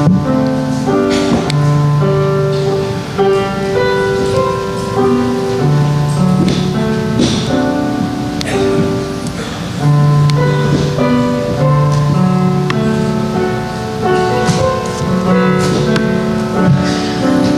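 Instrumental keyboard music: a slow piece of held chords and melody notes changing about once a second.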